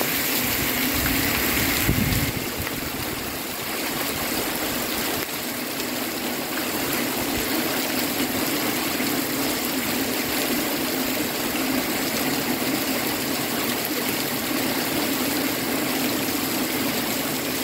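Heavy tropical-storm rain falling steadily, with water streaming off the edge of a roof close by.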